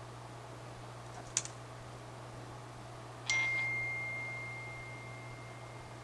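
Two sharp metallic clicks about two seconds apart from a small metal tool striking metal. The second strike leaves one clear high ringing tone that fades out slowly over nearly three seconds.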